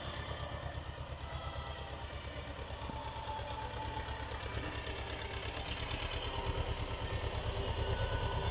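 A motor running steadily with a low, rapid, even throb that grows slightly louder.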